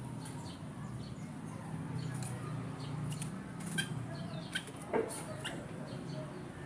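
Kutilang emas bulbul calling in a lure recording: a run of short, sharp, falling chirps, with a louder call about five seconds in, over a steady low hum.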